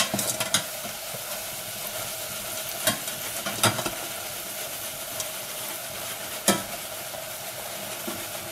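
Potato chips deep-frying in a saucepan of hot oil, a steady sizzle as moisture cooks out of freshly added thin chips. A slotted spatula swishes the oil around and knocks against the metal pan several times, most sharply about 3, 3.7 and 6.5 seconds in.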